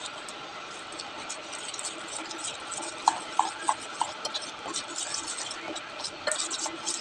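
Metal spoon stirring and scraping a thick, wet spice paste in a stainless steel bowl, with many small irregular clicks and scrapes as water is worked into the rice flour and spices.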